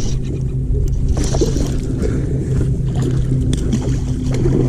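Bass boat motor running steadily with a low hum, with scattered small clicks and knocks on top.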